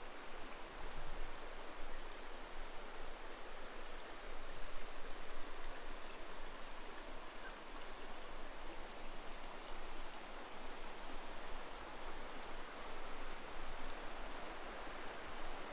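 Shallow river running over stones and rocks: a steady rush of flowing water.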